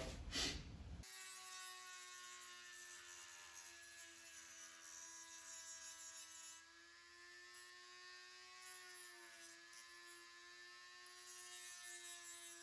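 Small handheld rotary tool fitted with a sandpaper drum, running at high speed against the edge of a plastic gauge bezel: a faint, steady whine that starts about a second in, its pitch wavering slightly.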